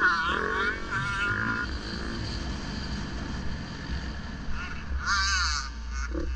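Dirt bike engine revving under throttle during a motocross lap, its pitch wavering up and down. It revs hardest near the start and again about five seconds in.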